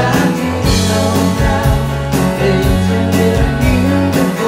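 Live band music: two electric guitars playing while a man sings, over steady bass notes and a regular beat.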